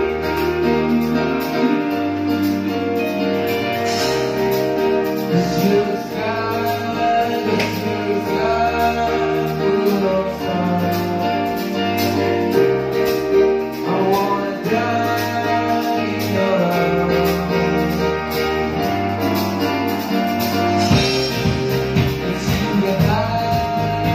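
Live band playing amplified through a PA: acoustic and electric guitars, bass and keyboard, with a singing voice over a stepping bass line.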